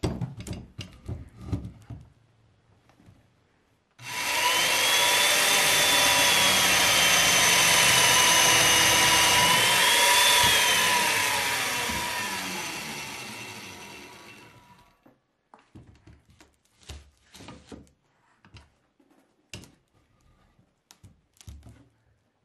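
Electric woodworking power tool cutting cedar: it starts abruptly a few seconds in, runs loudly for about six seconds, then winds down slowly as the motor coasts to a stop. Light knocks and clicks of wood being handled come before and after.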